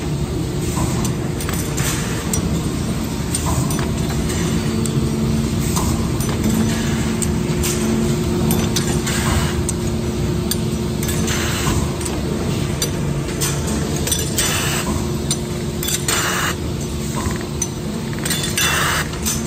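Engine bearing shell production line running: a steady machine hum with steel bearing shells clinking as they feed along the conveyors and chutes. Short hisses of air come every couple of seconds in the second half.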